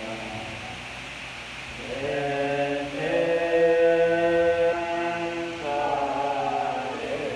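A group of voices chanting a Buddhist prayer in unison, holding long drawn-out notes. The chant is softer at first, swells about two seconds in and is loudest around the middle.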